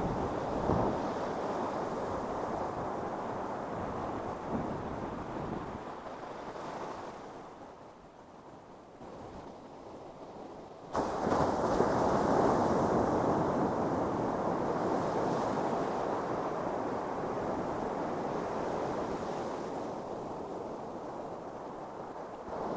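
Ocean surf breaking and washing up a beach, as a steady rush. It dies down to a quieter wash about halfway through, then comes back full at once.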